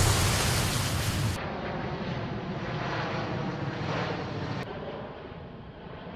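Wind buffeting the microphone for about the first second and a half, then the steady distant drone of C-17 transport jets' turbofan engines, fading down about two-thirds of the way through.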